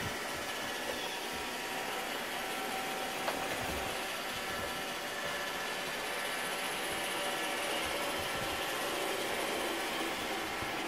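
iRobot Roomba robot vacuum running on carpet: a steady whir of its motors with a constant mechanical hum, and a couple of light ticks.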